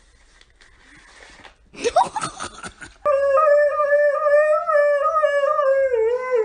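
Siberian husky howling: one long, wavering, pitched howl that starts suddenly about three seconds in and dips slightly in pitch near the end. Before it, a brief loud burst of scuffling noise.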